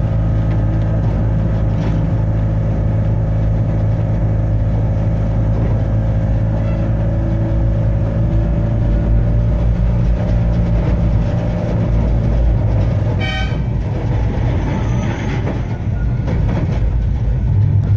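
Blackpool Balloon double-deck tram 715 running on its tracks, heard from the front cab: a steady low hum of the motors with the wheels rolling on the rails. A short high toot about thirteen seconds in.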